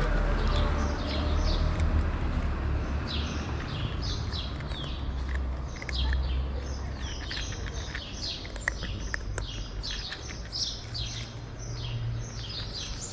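Small birds chirping over and over in many short, high, falling chirps, over a low rumble that eases off about halfway through.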